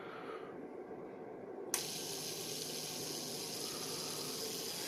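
Asetek all-in-one cooler pump switched on with a click almost two seconds in, then running with a steady watery hiss as it pushes tap water through tubing that holds a large trapped air bubble.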